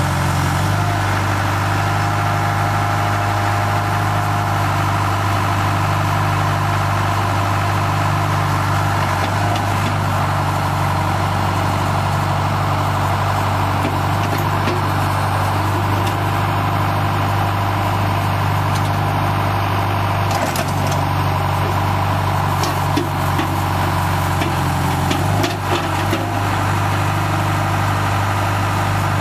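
John Deere 4045 four-cylinder diesel engine of a 2002 John Deere 310G backhoe running steadily, with a few knocks near the end.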